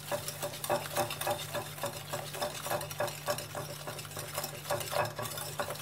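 Small wire hand whisk beating an egg with sugar in a ceramic bowl, its wires clicking and scraping against the bowl in quick even strokes, about five a second.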